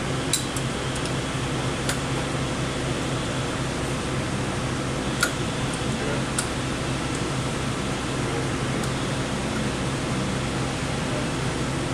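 Steady low mechanical hum, with a few sharp metal clicks as a wrench is fitted to and worked on the nut atop the valve's spring-loaded stem.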